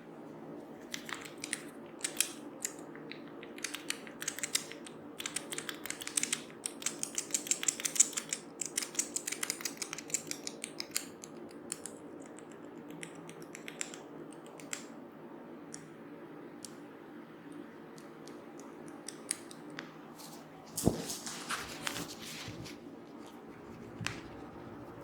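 Hands working on a person's head in a head massage: runs of quick, crisp clicks and snaps, densest several seconds in, thinning out, with another short flurry near the end.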